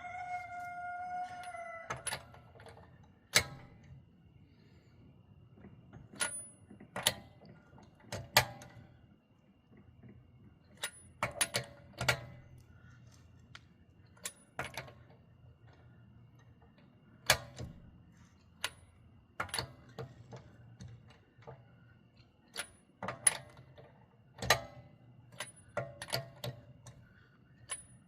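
Scattered sharp metallic clicks and clanks of hand tools and wheel parts being handled during a tire change, irregular and well spaced. A rooster finishes a crow in the first two seconds.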